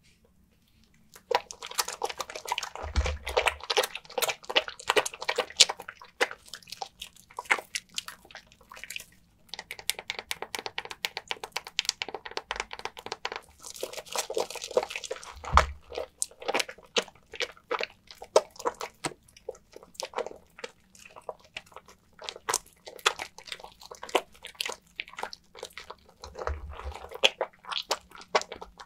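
A wet bar of soap being lathered, with dense crackling, squelching foam sounds that come in long stretches broken by short pauses, and a few soft low thumps.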